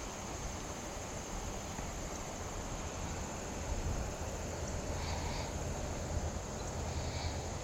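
Steady outdoor creek-side ambience: an even hiss with a constant high-pitched drone, and two faint chirps about five and seven seconds in.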